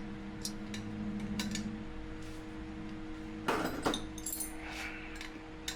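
Small metal wrenches clinking and clattering against each other as they are handled, with a louder metallic clatter about three and a half seconds in, over a steady low hum.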